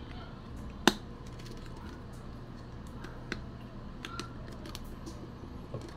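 One sharp click about a second in, then a few fainter clicks and taps: small camera parts being handled and set down on a cutting mat. A low steady hum runs underneath.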